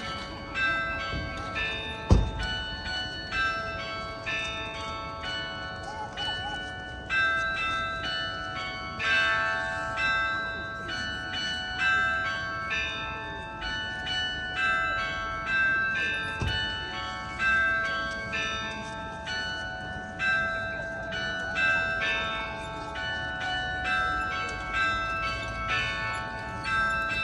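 Several church bells of different pitches rung together, their strokes overlapping about once a second, each note ringing on under the next. A low thump about two seconds in, the loudest moment, and another about two-thirds through.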